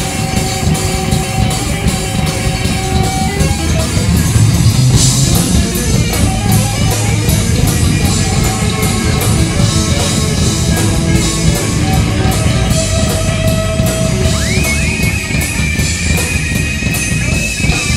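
Live rock music with a driving drum kit beat and electric guitar. About three-quarters of the way through, a high guitar note slides up and is held.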